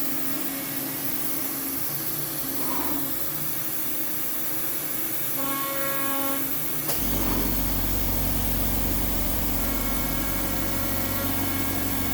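CNC router's spindle running and its axes moving while it cuts a light chamfer in 6061 aluminium, a steady machine whine. About seven seconds in there is a click and the sound changes to a louder, deeper hum.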